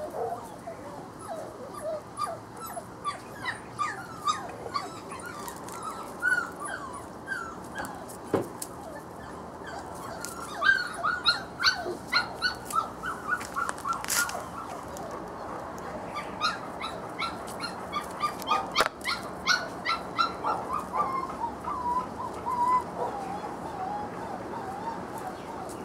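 Brittany puppy whimpering and yipping in short, high cries, often several a second, coming thicker from about ten seconds in.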